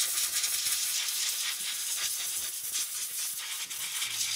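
Can of compressed air sprayed through its straw across a circuit board in one continuous, steady hiss, drying off cleaning alcohol.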